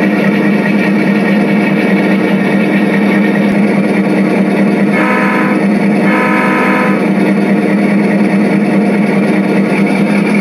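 Diesel locomotive sound for a model diesel: a steady engine drone, with two horn blasts about halfway through, the second longer than the first.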